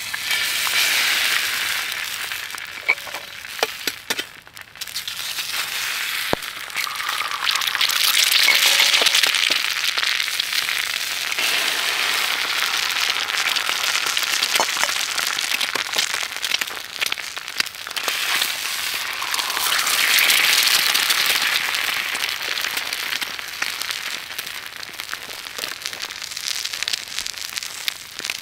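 Eggs frying in a pan over a wood fire: a steady sizzle that swells and fades several times, with sharp crackles and pops throughout.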